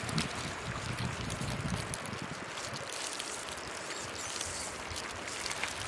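Shallow water sloshing and trickling as a mesh net bag full of crabs and fish is dragged and lifted through it, with a steady rushing noise.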